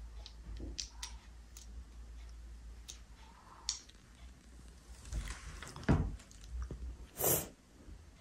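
Handling of small objects and packaging: scattered faint clicks, a single thump about six seconds in, and a short rustle a second later.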